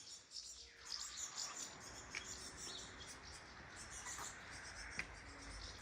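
Light summer rain falling in an even hiss, with scattered short, high chirps of small birds and a couple of sharp ticks.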